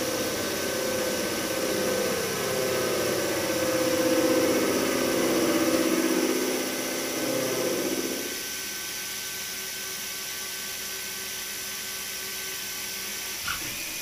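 Side-and-face milling cutter facing a sand-cast aluminium part, a wavering, pitched cutting sound over a steady hiss of air and mist coolant. About eight seconds in the cut ends, leaving only the quieter hum of the running spindle and the hiss.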